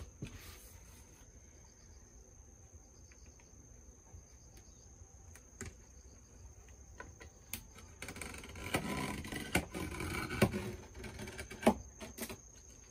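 A steady high-pitched insect drone throughout. About two-thirds of the way in, a louder stretch of scraping and rubbing on a polycarbonate sheet as a spirit level is slid across it and worked along with a tool, with several sharp clicks.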